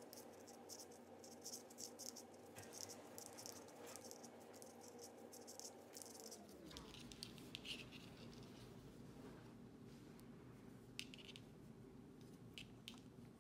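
Faint, irregular clicks and scratching of circular knitting needles and yarn as stitches are worked, over a low steady hum.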